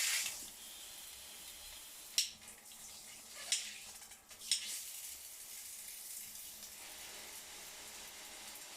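Water spraying from a handheld shower head, loud at first and then dropping to a steady faint hiss soon after the start, as the head's flow switch is worked. Three short sharp clicks come a second or so apart in the middle.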